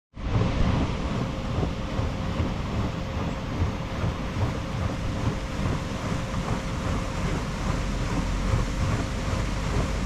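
Steady rush of water pouring over a river weir, with a low gusty rumble of wind on the microphone.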